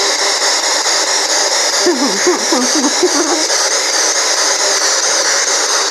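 Handheld spirit box, a radio sweeping through stations, giving out steady loud static hiss, with a brief snatch of voice-like sound about two seconds in.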